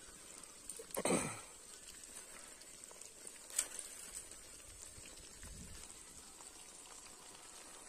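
Dry branches being handled outdoors: a brief rustling swish about a second in, then a single sharp click or snap at about three and a half seconds, over a faint steady high hiss.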